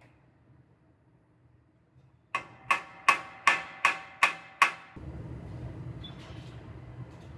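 A hammer striking the new steel front frame section of a Ford F-150 to tap it into position for fit-up: seven sharp metallic strikes, about two and a half a second, starting a couple of seconds in, each ringing briefly. After about five seconds a steady low hum sets in.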